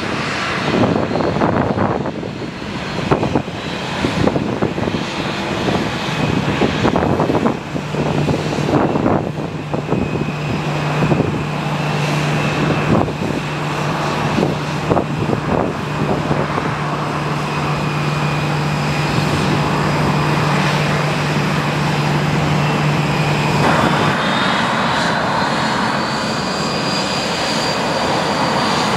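Boeing 737-800's CFM56 turbofan engines running at taxi power, a steady jet whine over a low hum. About 24 seconds in, a second engine whine rises in pitch and then holds.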